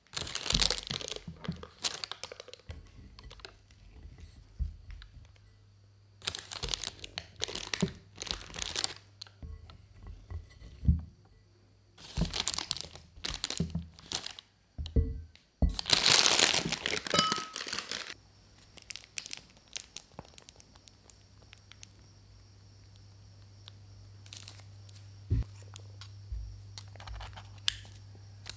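Plastic piping bag crinkling in irregular bursts as thick churro dough is scraped from a glass bowl with a silicone spatula and pressed into it; after about 18 seconds it turns much quieter, with a steady low hum and only a few soft handling sounds.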